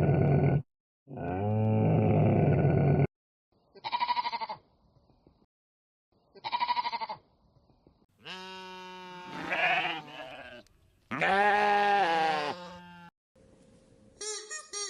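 A run of separate farm-animal calls: two long deep calls, two short higher calls, then two long wavering bleats.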